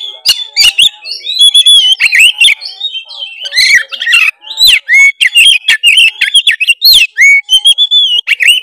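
Oriental magpie-robin singing in full, lively song: a loud, unbroken run of varied whistles and quick rising and falling notes, mixed with sharp clicking notes.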